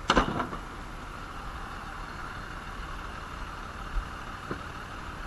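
A vehicle's engine running steadily, heard as a constant drone with no changes in pitch. Right at the start there is a brief loud clatter of a few sharp knocks, and there are faint single clicks about four seconds in.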